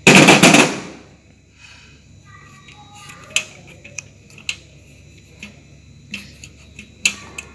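Hand tools on the valve gear of a Greaves engine's cylinder head: a short, loud metal clatter at the start, then light scattered clicks and taps as the rubber valve stem seal is worked off the valve stem.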